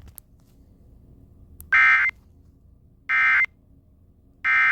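Emergency Alert System end-of-message signal: three short, identical bursts of SAME digital data tones, spaced about a second and a half apart. They mark the end of the alert.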